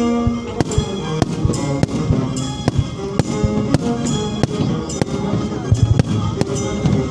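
Fireworks bursting in a rapid series of sharp bangs about every half second, over loud music with a sustained melody.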